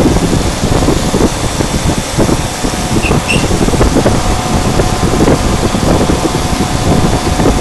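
CNC router running and cutting an acrylic plate: a loud, steady machine noise with an uneven low rumble and a faint steady tone through it.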